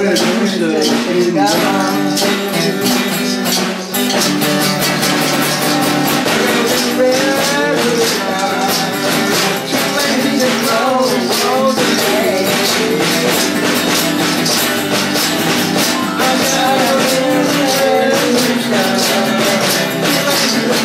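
Live acoustic blues: a woman singing into a microphone over strummed acoustic guitar, with a tambourine shaken in a steady beat.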